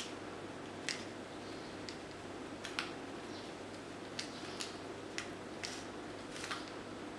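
Kittens scrabbling in a plastic mesh laundry basket: about ten scattered light clicks and short scrapes of claws and paws on the plastic, with the basket shifting on a tiled floor, over a steady low hum.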